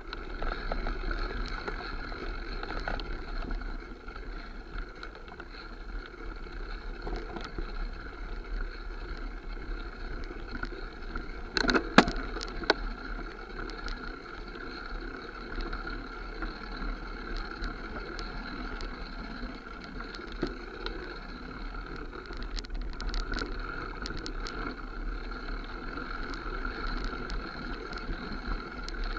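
Mountain bike riding down a dirt forest trail, heard from a bike-mounted camera: a steady rushing rumble of tyres and wind, with a short burst of knocks and rattles about twelve seconds in.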